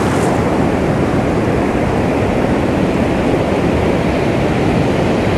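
Ocean surf breaking and washing around, a steady loud rush of noise with wind buffeting the microphone.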